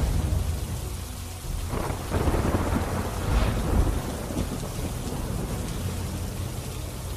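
Heavy monsoon rain pouring, with a low rumble underneath that swells twice, about two and three and a half seconds in.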